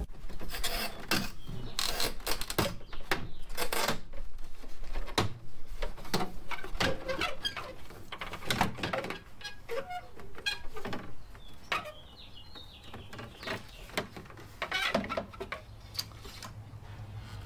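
Plastic trunk skirt trim of a Honda Goldwing GL1500 being pried and pulled loose by hand: irregular clicks, knocks and squeaks as its locking tabs come apart. The sounds are busiest in the first half and thin out later.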